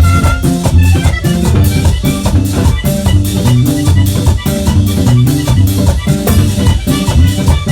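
Vallenato music: a button accordion playing a melodic run over bass and drums, in a steady rhythm.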